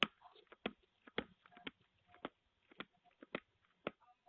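A scatter of faint, irregular clicks and taps, about a dozen, with near-silent gaps between them and the sharpest one right at the start.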